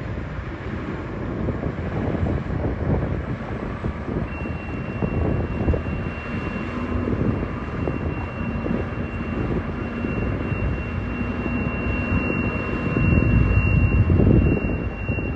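Bulldozer engine running under load, a steady low rumble that swells louder near the end, with a thin high whine joining about four seconds in.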